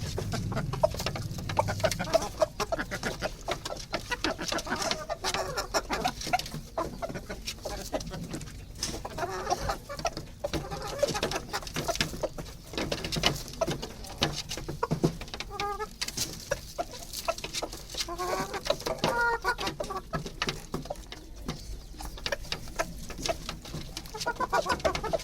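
Silkie chickens clucking, with short calls scattered through, over a continual patter of small sharp clicks.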